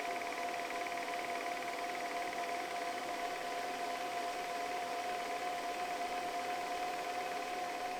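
EZVIZ RH1 cordless wet-dry floor cleaner running its self-cleaning cycle for the brush roller: a steady motor whine over a hiss of air and water.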